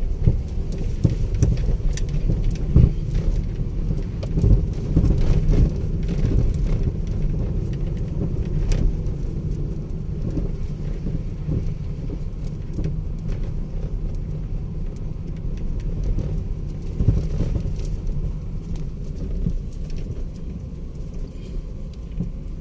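Low rumble of a car driving over a rough road under construction, with scattered knocks and jolts from bumps.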